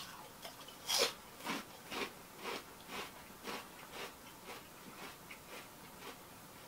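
Mouthful of potato crisps being chewed with the mouth closed: short crunches about two a second, loudest about a second in and growing fainter toward the end.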